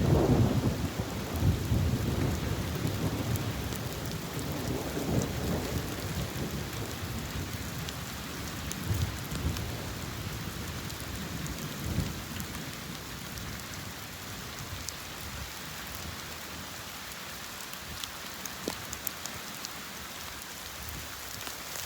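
Thunder rumbling loudly at the start and dying away over several seconds, with a few fainter rumbles later, over the steady hiss of rain falling, with scattered drops ticking near the end.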